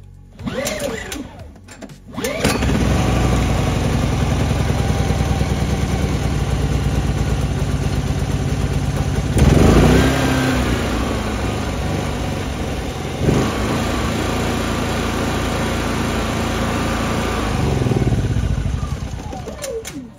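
Small portable petrol generator starting on stale two-year-old petrol after having been run dry: a couple of short whirring attempts, then it catches about two seconds in and runs steadily, with a brief louder surge near the middle.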